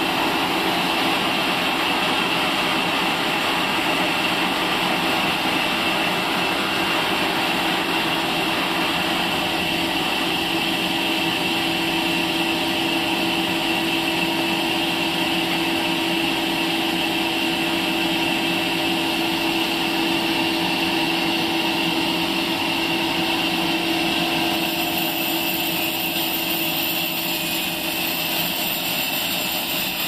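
Horizontal band sawmill running with its blade cutting lengthwise through a log: a steady machine noise with a constant hum.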